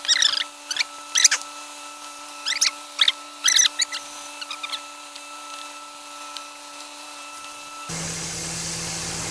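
A series of short, sharp rising squeaks from working the transmission fluid fill pump and hose, over a steady hum. About eight seconds in, a louder steady hiss begins.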